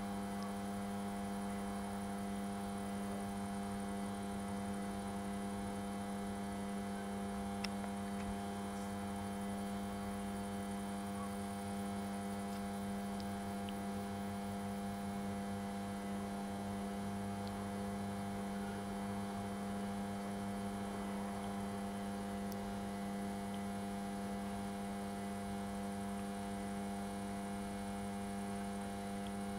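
A steady electrical hum: one low buzzing tone with a stack of overtones, unchanging in pitch and level.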